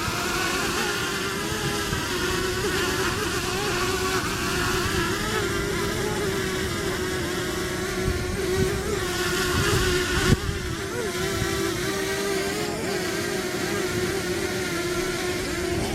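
DJI Mavic Mini quadcopter's propellers buzzing steadily as it hovers close by for landing, the pitch wavering slightly, with wind rumbling on the microphone. A single sharp knock about ten seconds in.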